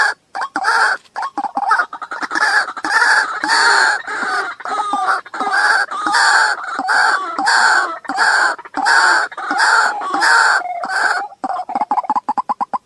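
Waterhen calling: a long series of loud, harsh, repeated calls at about two a second, giving way near the end to a fast run of short clicking notes.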